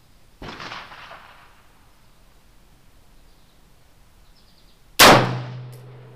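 A single loud gunshot from an AR-15 firing .223 ammunition about five seconds in, dying away over about a second with a low ringing. About half a second in there is a quieter, sharp metallic clank.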